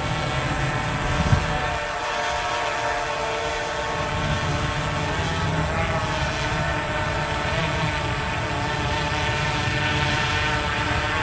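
Parrot Disco flying wing's electric motor and rear pusher propeller whining steadily in flight, its pitch wavering slightly, over a low rumble of wind. There is a brief low bump about a second in.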